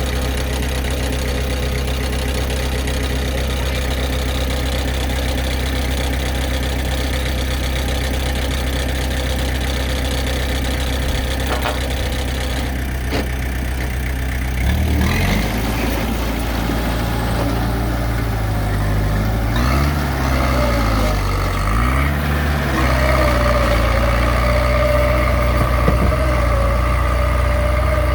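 Heavy diesel engine running, idling steadily at first, then from about halfway its pitch rising and falling several times as the load changes. A steady high whine joins in during the last third.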